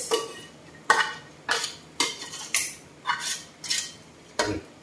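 A long metal spoon clinking and scraping against a stainless steel cooking pot as curry is scraped out of it into a rice cooker pot. There are about seven sharp metallic clinks, roughly two a second.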